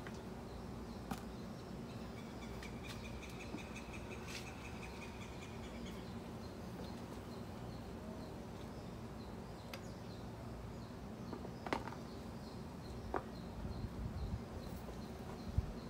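Insects chirping over a steady low hum: a short pulsed trill about three seconds in, then a high chirp repeating about twice a second. A few soft clicks and rustles come from a hand working the soil of a garden bed, mostly in the last few seconds.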